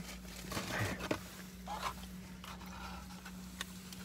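Soft chewing and mouth sounds of someone eating a burger, with small clicks and rustles, over a steady low hum.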